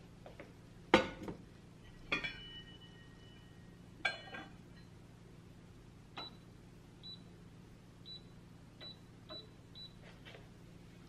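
An enamel pot set down on a glass-top hob with a knock, followed by two metal clinks with a short ring as the lid is handled. From about six seconds in, the hob's touch controls give six short high beeps as it is switched on and the heat is set.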